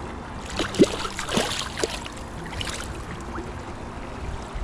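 Shallow river water running and trickling around the wader's legs, with a few short splashes in the first half as the landing net holding the fish is moved in the water.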